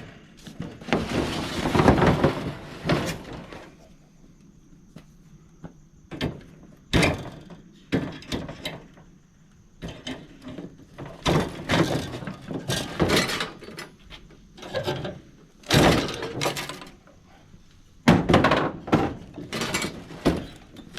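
Irregular thunks, knocks and scraping of metal as the coil of a PTAC air-conditioner is worked loose for removal, with a longer grinding scrape about one to three seconds in.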